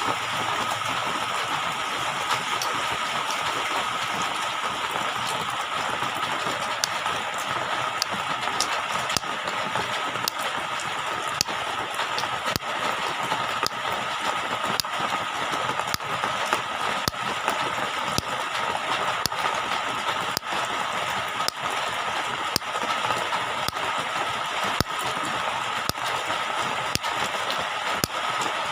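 Steady rushing water with a constant hiss and a faint steady tone, dotted with scattered irregular clicks like drips or popping bubbles.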